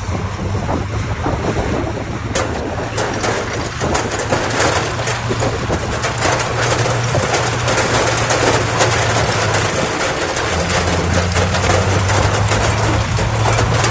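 Diesel engine of heavy earthmoving equipment running steadily, its note shifting about ten seconds in. From about two seconds in, a dense crackling clatter runs over it.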